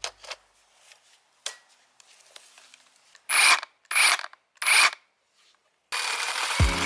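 Cordless reciprocating saw with a pruning blade: a few light handling clicks, then three short trigger pulls running the blade free in the air, each about half a second. Near the end it runs continuously as it starts cutting into a thick tree trunk.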